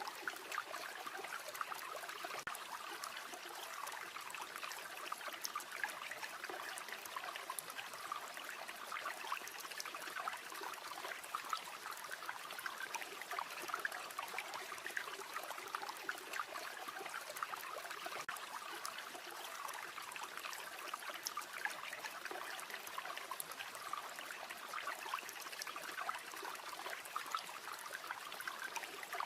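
River water flowing steadily over stones, a continuous babbling and trickling.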